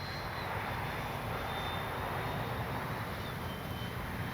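The 80mm 12-bladed electric ducted fan of an FMS Integral RC jet whining in flight, a faint high tone that slowly drops in pitch, over a steady low rumble of noise.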